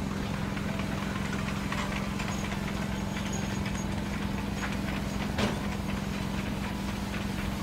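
Crane engine running steadily under load, with a constant hum and a single sharp click about five and a half seconds in.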